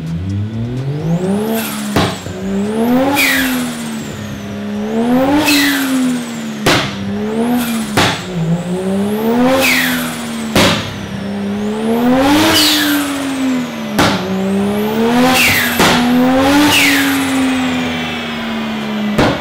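Toyota 1JZ straight-six in a Nissan 350Z, run on a dyno. It revs up and drops back about seven times. A high whistle falls away after each peak, and sharp cracks come between the revs.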